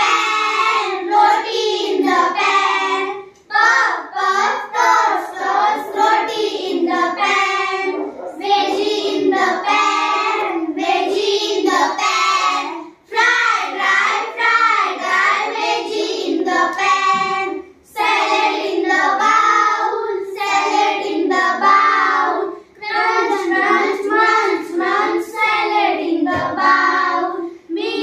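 A group of young girls singing an action rhyme together in unison. The lines come in phrases of a few seconds, with brief pauses between them.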